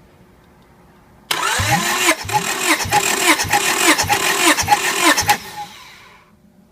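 Honda F23A four-cylinder engine being cranked over by its starter motor for a compression test. It is not firing. The cranking starts suddenly about a second in, pulses about twice a second as the starter labours through each compression stroke, and stops after about four seconds with a short whir running down.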